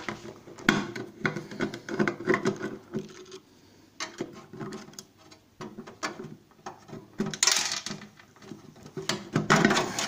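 Screwdriver and plastic-housed microwave turntable motor being worked loose: irregular clicks, knocks and rattles as the fixing screw is turned out and the motor is handled, with two short scraping hisses near the end.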